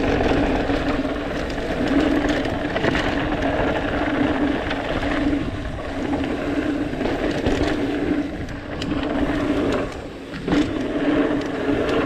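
Mountain bike riding down a rough downhill trail: steady rushing noise with frequent knocks and rattles from the bike over the ground, and a buzzing tone that comes and goes throughout.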